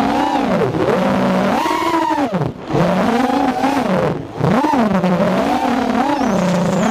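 FPV racing quadcopter's brushless motors and propellers whining, the pitch swooping up and down with the throttle, with two brief throttle drops about two and a half and four seconds in.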